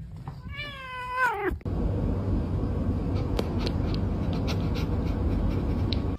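A cat gives one meow about half a second in, lasting about a second and falling in pitch at the end. It is followed by an abrupt switch to a steady low rumbling noise with a few faint clicks.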